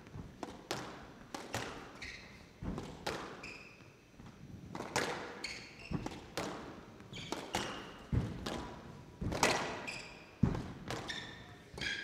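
A squash rally: the ball smacked by rackets and thudding off the court walls in quick succession, about one or two hits a second, with short squeaks of court shoes on the floor between them.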